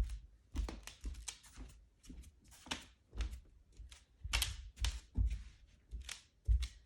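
Footsteps on a newly installed Shaw floor, each step giving a low thud with a crunching crackle, about two steps a second. The crunching is a persistent fault in the installed floor that has not gone away.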